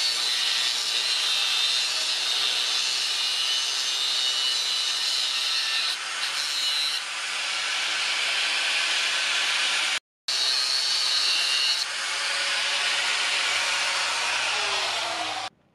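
Angle grinder with a thin cut-off disc cutting through rusty leaf-spring steel: a continuous high whine with grinding hiss. The sound breaks off briefly about ten seconds in and stops suddenly near the end.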